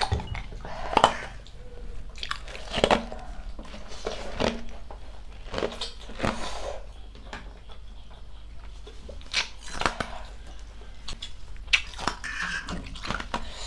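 Close-up eating sounds of spicy instant noodles: chewing, with irregular short clicks and scrapes of forks on plates.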